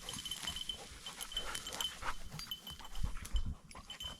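Bird dog panting hard after running, a quick run of short breaths: the dog is tired and hot.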